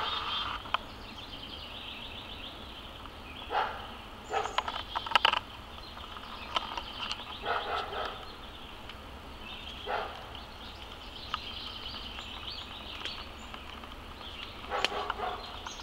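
Steady high-pitched insect trilling, rapidly pulsing, broken by several short, louder animal calls spaced a second or more apart.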